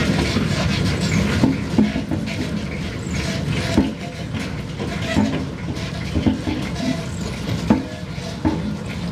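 Road roller's diesel engine running steadily with a low rumble, with a few sharp knocks standing out over it.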